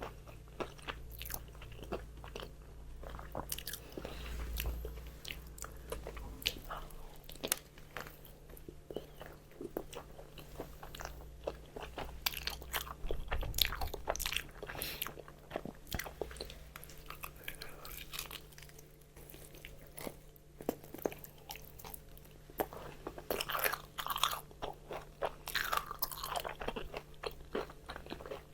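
Close-miked biting and chewing of crispy fried chicken: a dense, irregular run of crunches.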